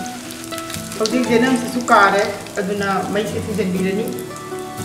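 Hot oil sizzling and crackling in a nonstick pan as dried red chillies, bay leaves and chopped greens fry for a tempering, with a spatula stirring them early on. Background music with a melody plays over it.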